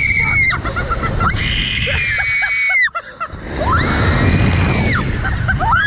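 A woman screaming on a thrill ride: long, high screams held a second or more each, one after another with short breaks between, over a steady low rush of wind on the microphone.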